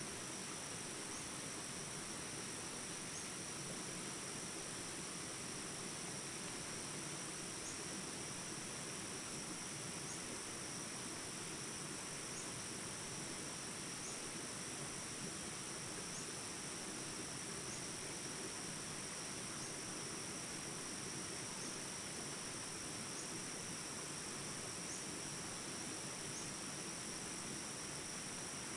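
Jungle ambience recording: a steady, high insect drone over the even rush of small rapids, with a faint chirp every couple of seconds.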